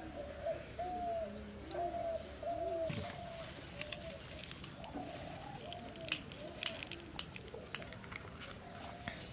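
Doves cooing over and over in short, bending calls. From about three seconds in come many small sharp clicks: a thin stick picking holes in raw eggshells.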